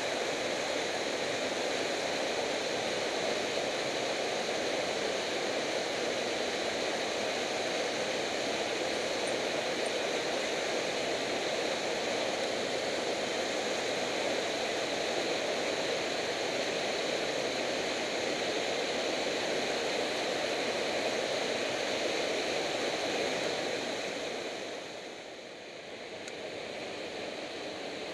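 Mountain torrent: a small waterfall pouring over boulders into a rock pool, a steady, even rush of water. About three-quarters of the way through it fades and settles a little quieter.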